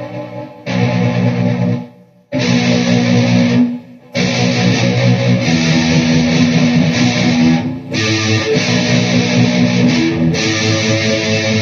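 Electric guitar played through a Peavey VYPYR X2 modelling amplifier with a heavy, distorted tone: sustained chords ring out, are cut off short a few times and start again.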